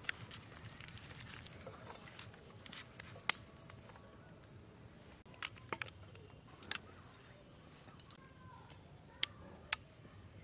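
Quiet handling sounds as a mustard-and-poppy-seed paste is mixed by hand in a steel bowl. A few sharp clicks and taps are scattered through, the loudest about three seconds in.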